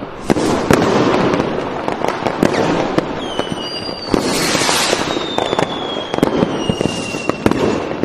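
Fireworks sound effect: dense crackling with many sharp pops, and from about three seconds in two long whistles that fall slowly in pitch.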